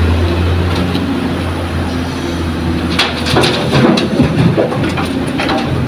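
Loaded dump truck's diesel engine working hard up a dirt ramp, a steady low drone that fades after about two seconds. Over the next few seconds it gives way to a run of irregular sharp clattering knocks.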